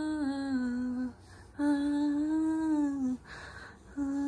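A woman humming a tune in long held notes, each phrase sliding down in pitch at its end. There is a short breath between phrases about three seconds in.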